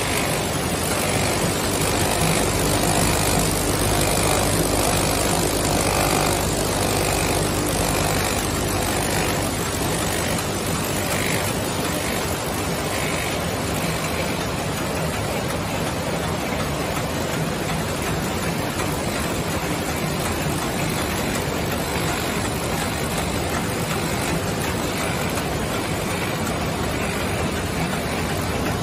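Screw-making machines (a heading or thread-rolling machine and its vibratory bowl feeder) running together on a factory floor: a loud, steady mechanical din.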